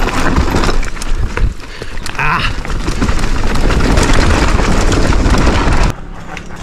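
Mountain bike descending a steep rocky downhill trail: tyres, chain and suspension clattering and rattling over stones and roots, with wind rushing over the microphone and a brief high squeal about two seconds in. The clatter cuts off abruptly near the end, leaving a quieter background.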